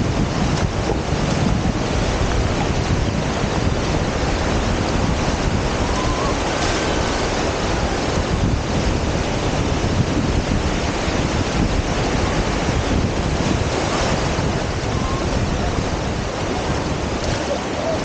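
Surf washing up the shore in low breaking waves, a steady rush of water, with wind buffeting the microphone.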